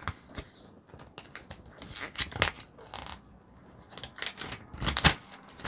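Paper and cardboard rustling and crinkling as a small product box is unpacked by hand, in scattered short bursts with louder crinkles about two and a half and five seconds in.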